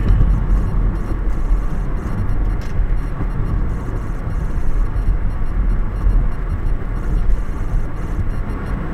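Steady low rumble of tyres and engine heard from inside a moving car's cabin at road speed.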